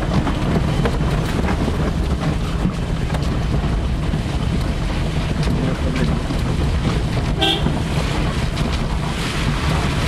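Steady rumble of a vehicle driving along a rough, wet dirt road, with wind noise on the microphone. There is a brief high-pitched toot about seven and a half seconds in.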